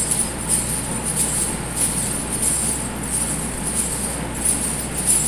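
Metal coins on a belly dance hip scarf jingling in a steady rhythm, shaken by each downward hip drop as the dancer alternately bends one knee and then the other.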